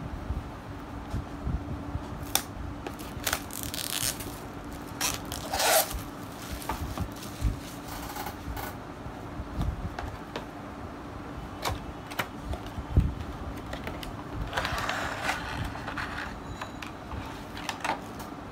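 Packaging being handled during an unboxing: a cardboard headphone box sliding and scraping, plastic tray and bags crinkling, and scattered taps and clicks on the tabletop. The loudest scrapes come about four to six seconds in, with a longer rustle about fifteen seconds in.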